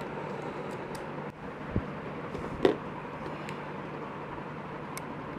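Steady low hum and hiss, with a few light clicks and knocks from an action camera and its plastic packaging being handled; the sharpest knock comes near the middle.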